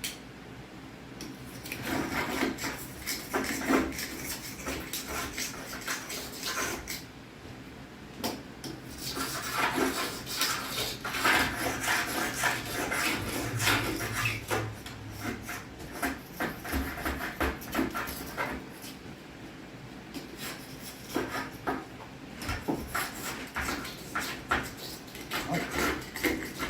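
Stainless steel caulk removal tool scraping and peeling old caulk out of a seam, in repeated rasping strokes, with quieter stretches between spells of work.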